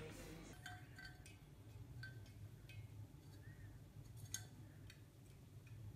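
Faint, scattered light taps and clinks of a cat's paws on an empty clear glass vase, the sharpest about four and a half seconds in, over near silence.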